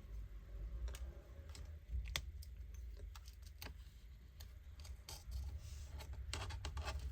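Scattered small clicks and light taps of a precision screwdriver and tools on a laptop's internal parts, as the screw holding the DC-jack connector is undone and the old connector lifted out. A low hum runs underneath.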